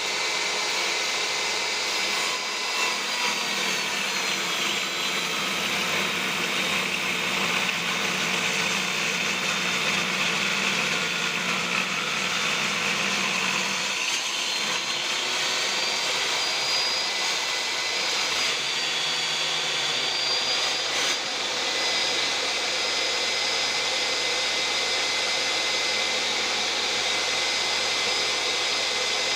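Wood saw machine running steadily, its blade giving a high whine that drifts slightly in pitch over a constant mechanical noise.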